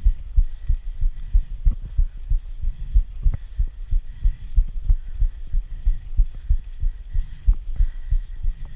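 Rapid, irregular low thumps and rumble on a mountain-biker's action-camera microphone while pedalling uphill on a concrete road, the jolts and buffeting of the ride picked up by the camera. A faint high steady tone comes and goes behind it.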